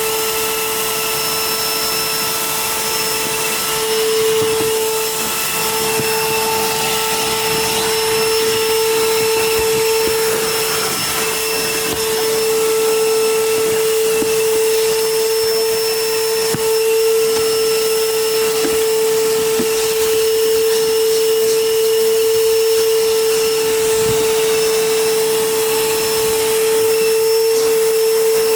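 Vacuum cleaner running steadily with a constant whine, sucking at a car's carpet, with scattered small ticks as debris goes up the hose.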